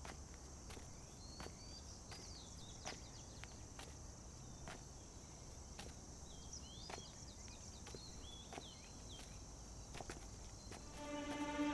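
Footsteps on a pine-needle forest floor, faint and about a second or more apart, over a steady high insect drone and scattered short bird chirps. Music fades in near the end.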